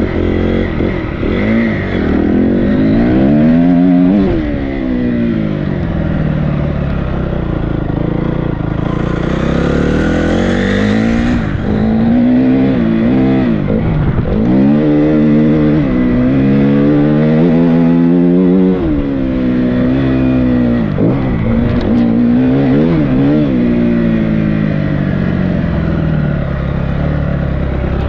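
Dirt bike engine under way, heard close up from on board, its pitch rising as the throttle is opened and dropping back as it shifts or eases off, over and over.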